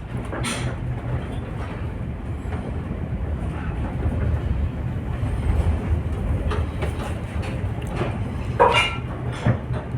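Steady low drone of a ship's engine and hull vibration, with scattered knocks and rattles; the loudest clatter comes near the end.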